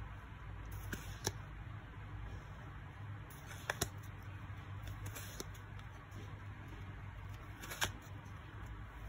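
Football trading cards being handled and flicked through one at a time: soft rustle of card stock with a few sharp snapping clicks as cards are moved onto the pile, two of them close together near the middle, over a low steady hum.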